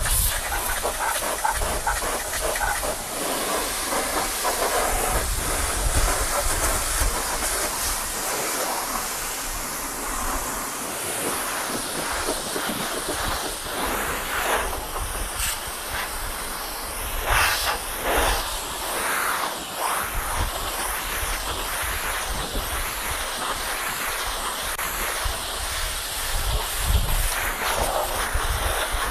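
High-pressure washer spraying a small truck: a steady hiss of the water jet striking the metal body and chassis, with a low rumble underneath. The hiss swells and changes as the jet moves across different surfaces.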